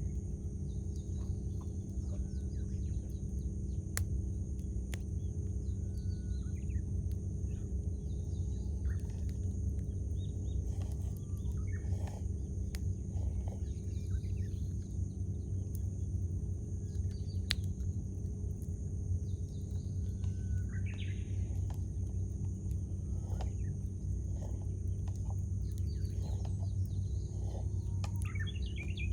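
Wood campfire crackling with scattered sharp pops over a steady low rumble, while wild birds chirp and call in short phrases. A longer call comes about two-thirds through, and a quick run of chirps near the end.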